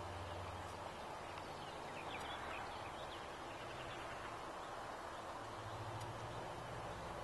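Outdoor ambience: a steady faint hiss and low hum, with a brief run of faint bird chirps about two to three seconds in.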